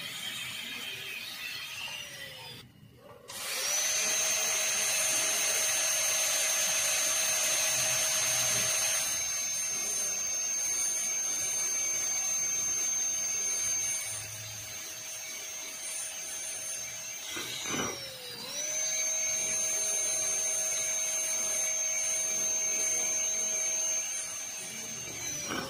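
High-speed dental air-turbine handpiece whining at a steady high pitch as its inverted cone bur cuts through the proximal contact of a typodont tooth. The whine spins down and back up about three seconds in and again about eighteen seconds in, then winds down at the end.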